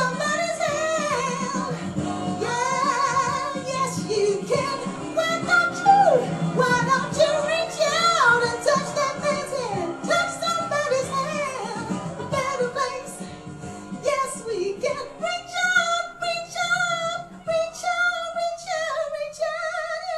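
A woman singing over a full pop backing track, her voice sliding through runs and ending on a long held note near the end.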